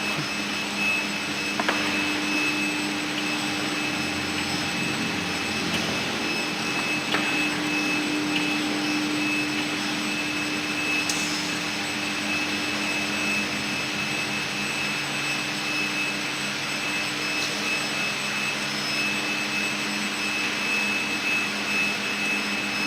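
PP plastic sheet extruder line running: a steady machine noise with a few steady whining tones held throughout.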